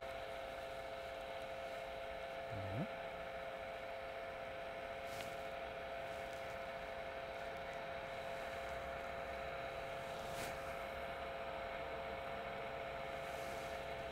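Faint steady hum, with a short rising tone about three seconds in and two faint clicks, one about five seconds in and one about ten seconds in.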